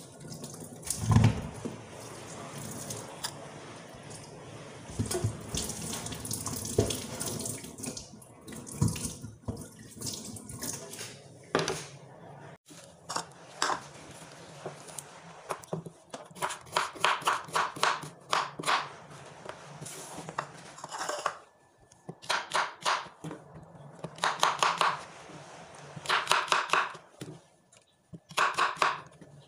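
Kitchen tap running while greens are rinsed under the stream, with a loud knock about a second in. About twelve seconds in, this gives way to a chef's knife chopping vegetables on a wooden cutting board in quick runs of strokes.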